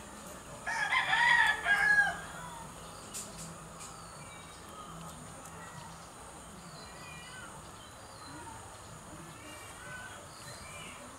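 A loud bird call about a second in, lasting about a second and a half, followed by faint, short, high chirps.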